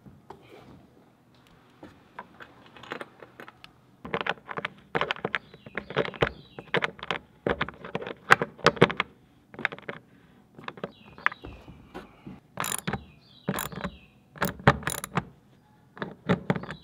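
Chrome bathtub drain flange screwed by hand into the drain shoe, then turned with a metal tool set through its crossbars: a run of irregular metallic clicks and knocks, starting about four seconds in and sharpest a few seconds before the end.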